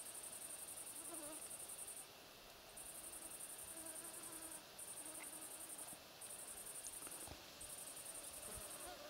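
Insect chirring: a faint, high, fast-pulsed buzz in phrases of one to two seconds, separated by short breaks.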